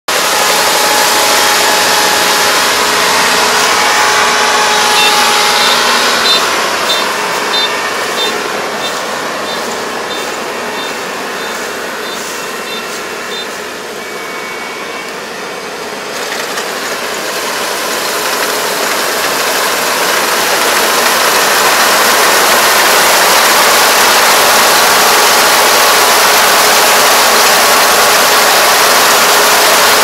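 Iseki ER470 combine harvester running while it cuts rice, a steady diesel-and-machinery drone. It grows fainter as the machine moves off, is faintest about halfway through, then grows louder again as it comes back.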